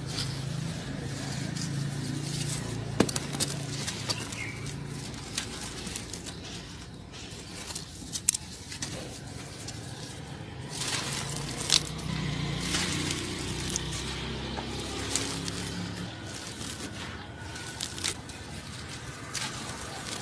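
Hands crushing and crumbling dry, dusty clods of earth: irregular crisp crackles and sharp snaps as the lumps break, with loose grains falling.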